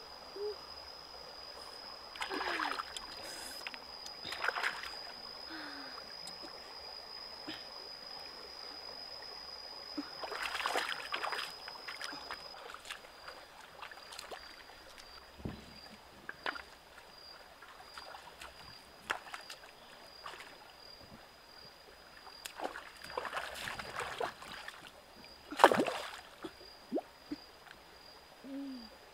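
Shallow stream water splashing and sloshing in short bursts as hands grope under rocks and feet wade, over the faint steady flow of the stream. A single sharp splash near the end is the loudest sound.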